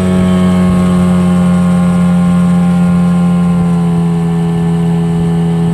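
Suzuki outboard motor running at speed and pushing the boat along, a loud, steady engine note that eases slightly in pitch over the first few seconds.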